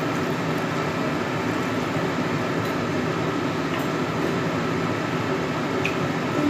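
Steady rushing kitchen noise over a wok of pork simmering in sauce, with a few faint clicks of a spatula as it is stirred.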